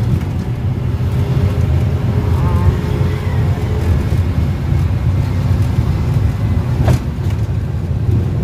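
Engine and road noise heard from inside a moving passenger vehicle: a steady low drone, with a sharp knock near the end.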